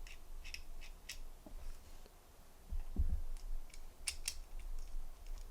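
Small metal parts of a Zippo lighter and its butane insert being handled, giving light clicks and ticks. There is a dull knock about three seconds in and two sharp clicks just after four seconds.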